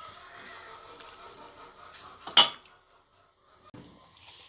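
A single sharp clatter of kitchenware about two seconds in, over faint background sounds. It drops to near silence for about a second before a small click.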